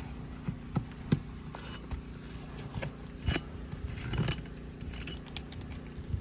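A roofing nail being worked loose from under an asphalt shingle with a metal tool: irregular sharp metallic clicks and taps, with a short scrape about four seconds in.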